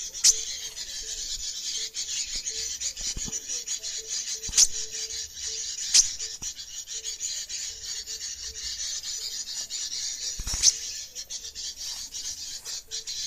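Dense, high-pitched chittering and trilling of small songbirds, the kind of lure call used to trap sunbirds and warblers, with a few sharp clicks scattered through it.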